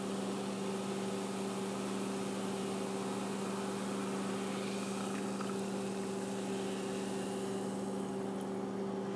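Ginger ale poured steadily from a can into a glass, a continuous fizzing hiss, over a constant low electrical hum.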